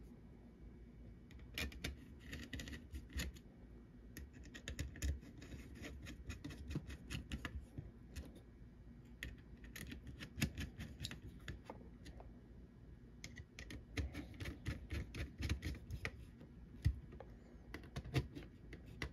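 Small hand screwdriver driving screws into the standoffs of a circuit board: faint quick clicks and scrapes of the tip in the screw heads, coming in several short runs with pauses between.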